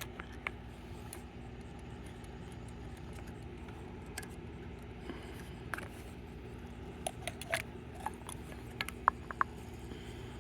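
Camp stove gear being handled during setup: scattered light clicks, taps and small metallic clinks, a few of them briefly ringing, bunched in the second half. Steady low background noise of a mild breeze runs underneath.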